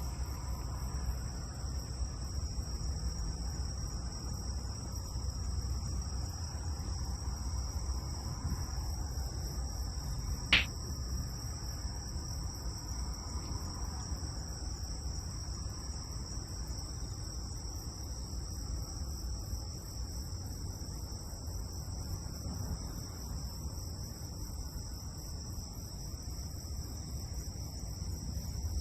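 Steady insect chorus, a high continuous trilling, over a low rumble, with a single sharp click about ten seconds in.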